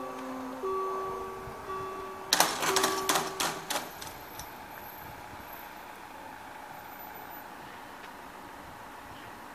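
Level-crossing warning bells sounding a repeated electronic tone while the barrier booms lower. About two and a half seconds in, the booms come to rest with a cluster of clattering knocks lasting about a second and a half, and the bells stop, leaving a steady low background.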